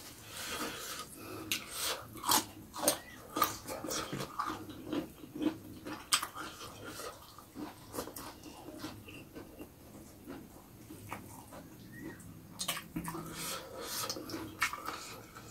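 A man eating with his hands: chewing and smacking his lips, with many short, sharp wet clicks, busiest in the first half and again near the end.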